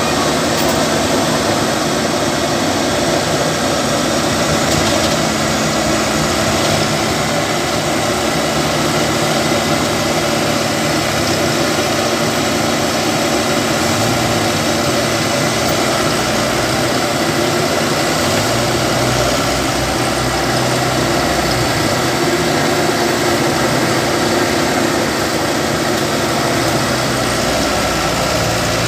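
Farm machine engines running steadily, with no clear revving or stopping: the tractor and the mud-stuck harvester during the recovery.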